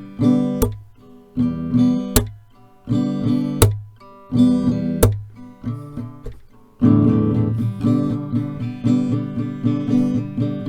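Acoustic guitar played in short, stopped strums with sharp percussive hits between them, settling into steady continuous strumming about seven seconds in.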